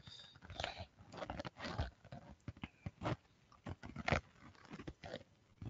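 Faint, irregular clicks and small knocks, about a dozen scattered through the few seconds.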